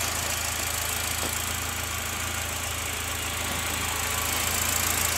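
UAZ Patriot engine idling steadily.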